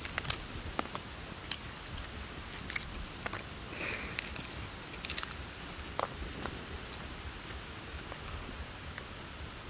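Eggshell crackling in small, irregular clicks as a cooked egg is peeled by hand.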